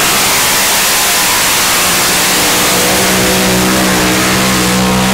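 Multi-engine modified pulling tractor at full throttle, dragging the weight-transfer sled down the track. The engines run loud and steady throughout.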